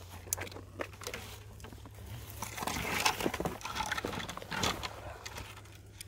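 Crackling and rustling of someone pushing on foot through dry brush and low branches, with twigs snapping and dry pine needles crunching underfoot in many short, irregular clicks.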